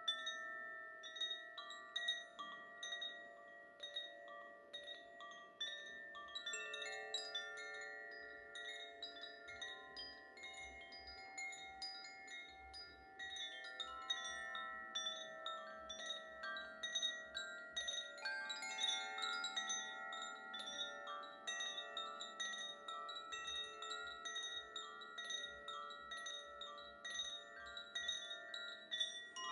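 Koshi chimes swaying, their clappers striking the tuned metal rods inside the bamboo tubes, so that many overlapping sustained notes ring in an irregular, continuous cascade.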